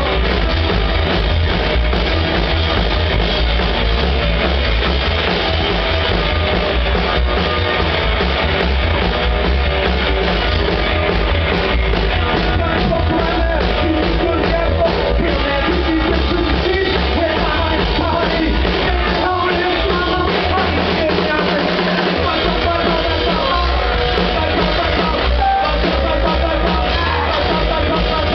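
A live band playing loudly: upright double bass, electric guitar and drum kit, with singing.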